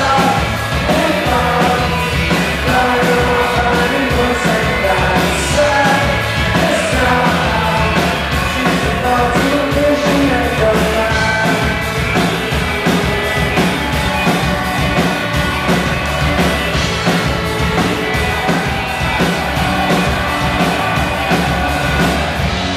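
Live rock band playing loudly: drum kit and electric guitars with a sung vocal line over them, continuous throughout.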